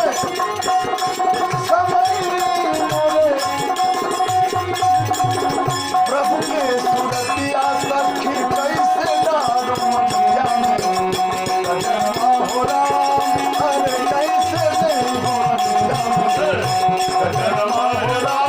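Indian devotional folk music in the sixteen-beat teen taal: a held tone with a melody winding over it, hand-drum strokes keeping time and a shaker-like rattle.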